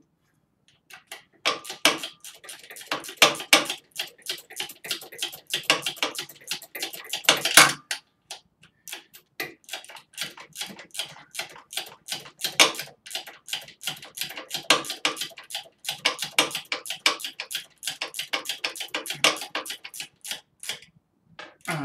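Ratchet clicking in quick runs of strokes, with a few metallic clinks, as a bolt on a Harley Dyna's upper engine mount is run in and tightened.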